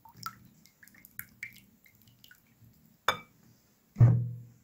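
Silicone whisk beating a thin egg-and-milk mixture in a glass bowl: soft clicks and small liquid splashes. Near the end come two knocks, the second louder with a short low ring.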